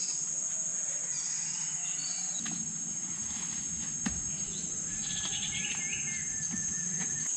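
Insects droning steadily at a high pitch, with birds chirping over them, and a single light knock about four seconds in.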